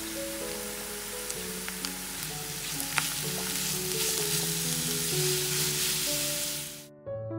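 Sliced onions and grated carrots sizzling in oil in a frying pan as a silicone spatula stirs them, with a few light clicks of the spatula on the pan, over background music. The sizzle cuts off suddenly near the end.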